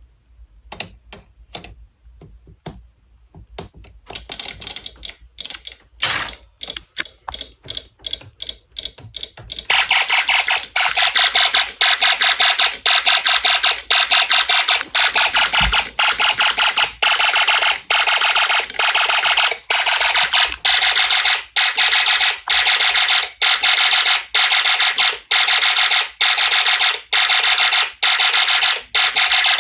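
Snap Circuits fire alarm sounding: a high-pitched electronic alarm tone pulsing in quick repeated beeps. It comes in stuttering, broken spells at first, then settles into a steady, louder pulsing from about ten seconds in.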